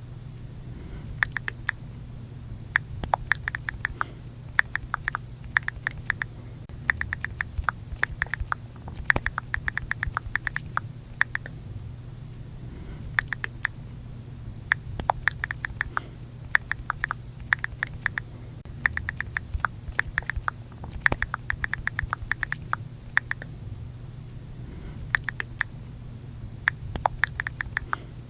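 iPhone keyboard click sounds from typing on the touchscreen: quick runs of sharp ticks with short pauses between bursts, over a steady low hum.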